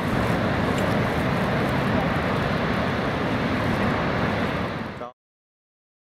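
Steady rushing outdoor noise of wind and heavy ocean surf, which cuts off suddenly about five seconds in.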